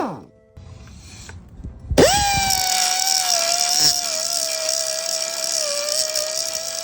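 Pneumatic 1/4-inch die grinder winding down to a stop. After about two seconds it starts up again suddenly and runs with a steady high whine that sags slightly in pitch under load as it grinds at a rivet.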